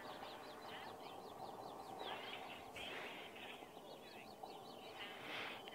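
Faint birdsong: several birds chirping and trilling in quick runs of short high notes over a steady background hiss.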